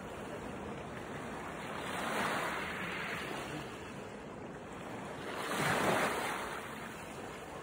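Sea waves washing ashore, a steady wash that swells twice, about two seconds in and again around six seconds.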